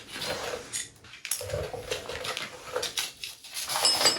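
Small metal motorcycle parts and tools being handled, with scattered light clicks and clinks, and a short low sound about one and a half seconds in.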